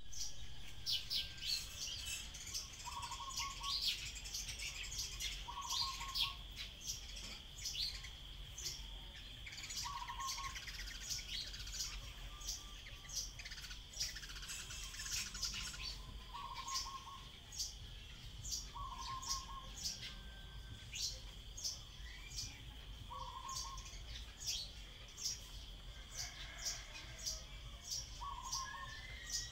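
Common tailorbird calling: a quick run of short, high chirps repeated over and over. Underneath is a steady high whine, and a lower short note comes every few seconds.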